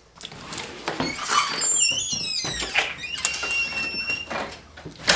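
A wooden door with glass panes being opened, squeaking in high tones that slide up and down, then shut with a loud thump just past five seconds in.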